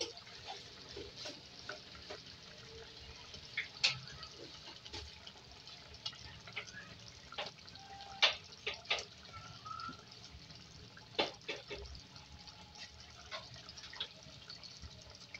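Chicken pota frying in hot oil in a clay karahi: a faint sizzle with scattered sharp pops and crackles, a few louder ones near the middle.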